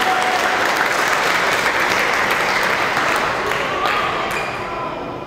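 A group of children and adults applauding, the clapping thinning out over the last second or so.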